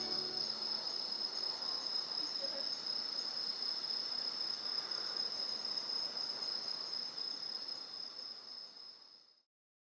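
Crickets chirping in a steady high trill, fading out near the end.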